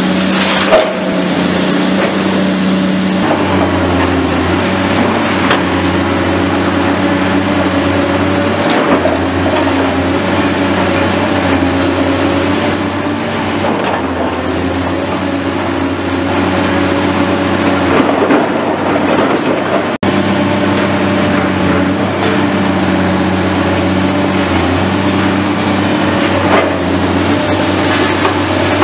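Caterpillar 345C excavator's diesel engine running steadily under load, its hydraulics working a demolition grab, with scattered knocks and clatter of rubble and scrap being moved.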